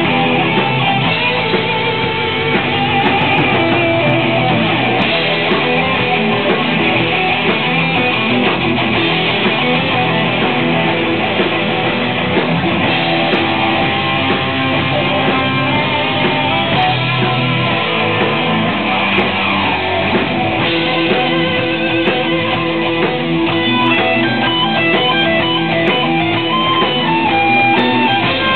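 Live rock band playing a loud, guitar-driven heavy jam, electric guitar to the fore, steady throughout.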